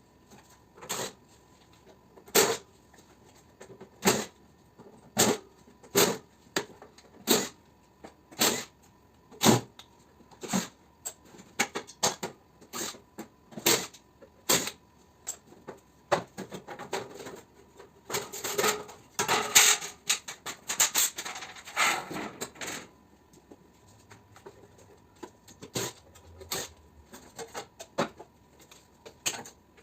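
Sharp metal clicks and knocks at about one a second while a mini-split air conditioner is taken apart for scrap. A busier spell of rattling and scraping comes in the middle, and scattered clicks follow it.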